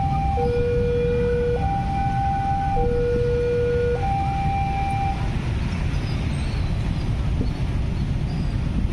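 Railway level-crossing warning alarm sounding two alternating tones, low and high, each held about a second, then stopping about five seconds in as the barrier lifts after the train has passed. Many motorcycle engines run underneath as traffic crosses the tracks.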